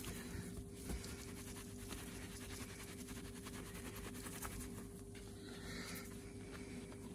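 Microfibre cloth rubbing over a small brass clock winder held in the hand: a soft, steady scuffing from the hand buffing, over a faint steady hum.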